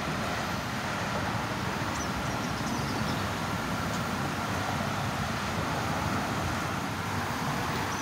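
Steady road-traffic noise with a low, uneven rumble.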